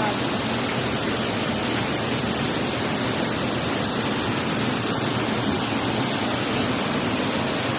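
Waterfall and stream water falling and rushing over rocks, a steady, even noise without a break.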